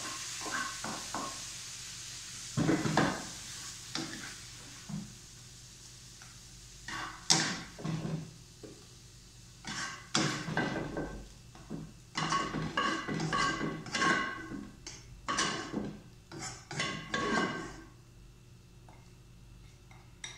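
Metal spatula scraping and knocking against a wok while stir-fried pickled mustard greens are scooped out into a bowl: irregular clanks, each with a short metallic ring, coming thick and fast in the second half. A sizzle from the hot wok fades out in the first couple of seconds.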